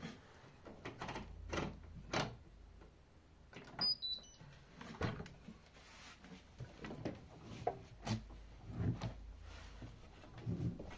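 Irregular soft knocks and clicks at a Hotpoint Ariston washing machine at the end of its Quick Wash 60 cycle, with a few brief high electronic beeps about four seconds in.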